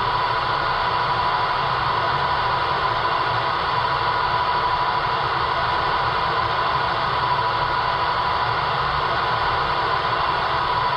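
Steady idling sound of an MTH O-scale R62 subway train model standing at the platform, played through its onboard speaker: an even hiss with a constant high hum, like a stopped subway car's running equipment.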